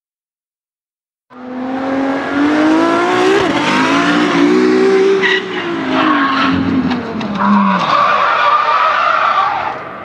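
Car manoeuvring and braking, starting about a second in: the engine note rises and falls while the tyres squeal and skid, with the squeal strongest over the last few seconds before it fades away.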